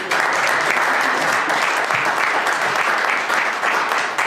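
Audience applauding, many hands clapping steadily at the end of a spoken-word slam poem.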